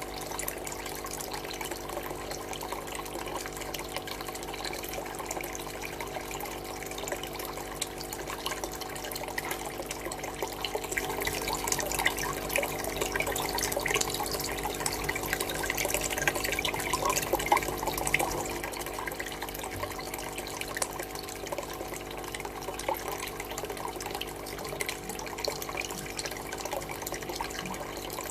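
Running water trickling and splashing into aquarium tanks, over a steady hum underneath. The splashing grows louder for several seconds in the middle, then settles back.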